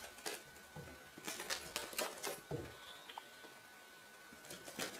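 A cat's claws scrabbling and scratching on a fabric mattress as it clings and drops down: a flurry of short scratchy clicks, densest between about one and two and a half seconds in, with a couple of soft thumps.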